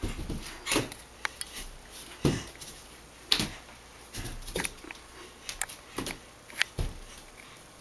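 Bare hands and feet slapping and thumping against painted hallway walls as a child braces between them and shuffles upward, an irregular run of knocks and taps, the loudest about two and three seconds in.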